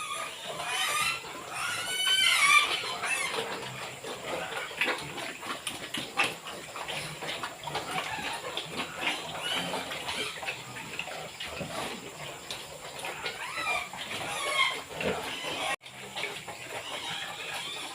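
Domestic pigs squealing and grunting as they eat, over steady wet chewing and slurping. The loudest squeals come a second or two in and again near the end.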